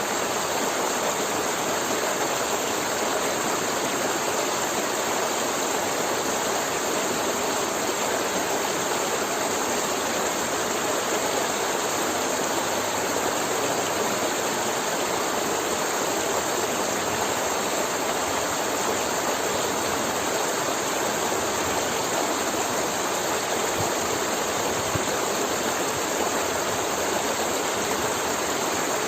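River water flowing and gurgling over rocks, a steady, unbroken rush.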